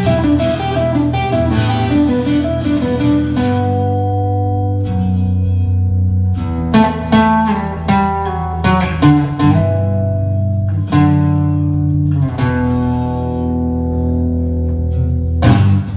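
Acoustic guitar playing an instrumental break: strummed chords and ringing held notes over low sustained notes, with no singing.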